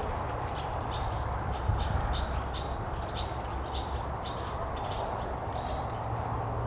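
A ridden horse moving over soft arena dirt: hoofbeats with short high ticks several times a second, over a steady low hum.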